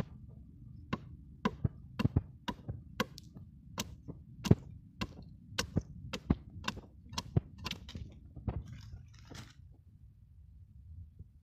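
A blade chopping into the bark and sapwood of an agarwood tree (Aquilaria filaria), about two sharp strikes a second that stop about nine and a half seconds in. The bark is being hacked away around an inoculation hole to expose the inoculated wood.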